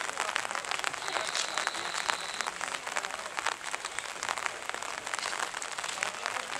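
Rain falling steadily on umbrellas close by, a dense, even patter with no engine rumble beneath it. About a second in, a faint thin high tone sounds for a second and a half.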